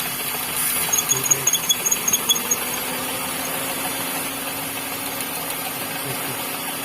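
Hyundai Eon's three-cylinder petrol engine idling steadily during a misfire check. About a second in, a quick run of sharp, high-pitched clicks sounds for about a second and a half.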